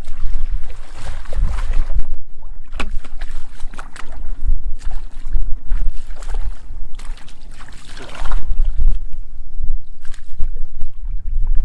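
Splashing and sloshing of boots wading and stirring through shallow muddy water, in irregular splashes every second or two, with hands groping in the water near the end. A low rumble of wind on the microphone runs underneath.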